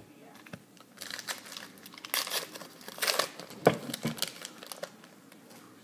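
A trading-card pack's wrapper being torn open and crinkled in hand: a run of rustling, tearing bursts that starts about a second in and dies away near the end.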